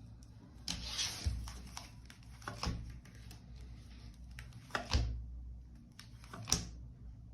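Tarot cards handled on a table: a short rustle of cards, then three sharp snaps or taps as cards are drawn and laid down.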